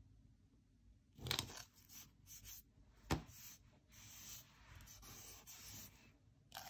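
Faint paper rustling as a sticker is pressed and smoothed onto a planner page, with a couple of sharp taps and a few seconds of steady rubbing as it is pressed flat.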